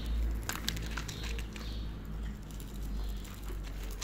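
A cat eating dry kibble from a plastic plate: a cluster of sharp crunches and clicks in the first second, then sparser ones, over a steady low rumble.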